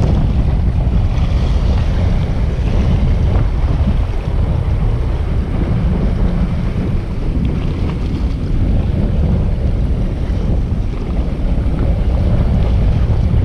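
Steady wind buffeting the microphone, with small waves washing against a rocky shore underneath.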